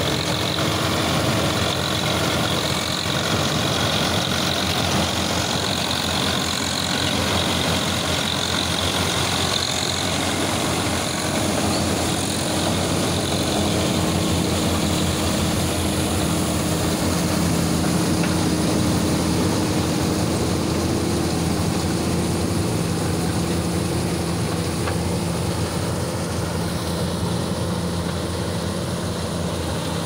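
Swaraj 855 tractor and Vikas 315 combine harvester running steadily, a loud diesel engine and machinery drone. A high whine sounds over it at first and fades after about ten seconds.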